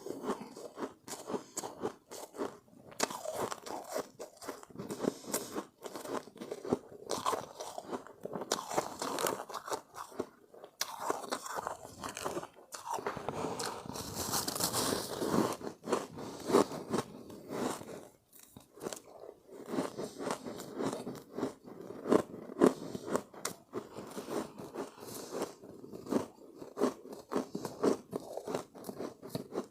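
Close-up chewing and crunching of refrozen shave ice: irregular, rapid crunches as the hardened ice is bitten and ground between the teeth.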